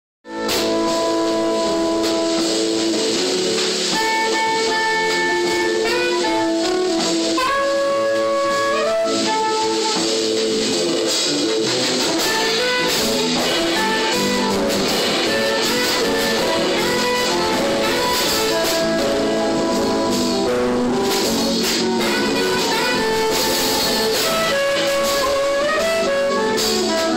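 Jazz-style instrumental music with a horn melody, starting abruptly right at the opening and playing steadily.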